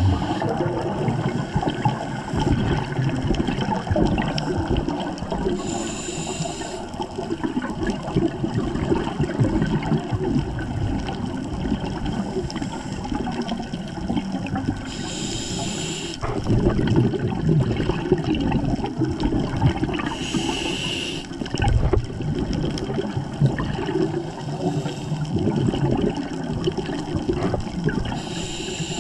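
Scuba diver breathing through a regulator, heard underwater: three hissing inhalations, about 6, 15 and 20 seconds in, with a steady gurgle of exhaled bubbles between them that swells after each breath.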